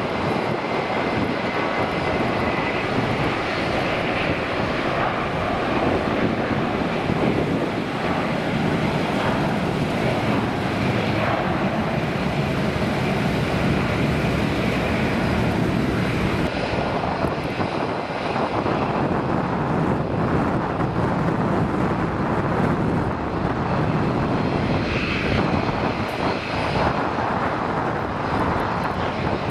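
Jet engine noise from an Airbus A320 airliner at takeoff power during its takeoff roll and climb-out. About halfway through the sound changes to a business jet's engines on final approach to land.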